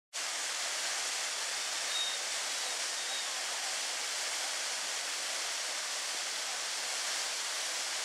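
Waterfall pouring over stepped rock ledges into a shallow river: a steady rush of falling water.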